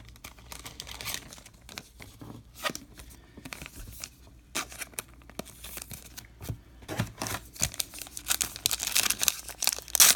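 Plastic-foil wrapper of a Topps Heritage Minor League baseball card pack crinkling in the hands with scattered light rustles and clicks, then tearing open, loudest near the end.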